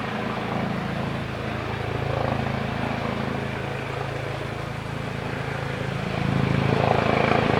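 Police helicopter hovering close overhead: a steady, very loud rotor and engine drone that swells louder about six seconds in.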